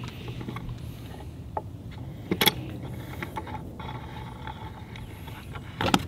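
Clamps being adjusted on a glued-up wooden shelf panel: scattered clicks and knocks, the sharpest a pair about two and a half seconds in and another near the end, over a low steady hum.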